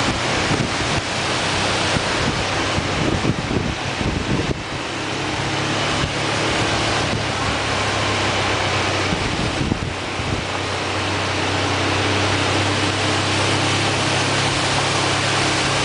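Kapuzbaşı waterfall's falling water rushing in a steady roar, with wind buffeting the microphone and a low steady hum underneath.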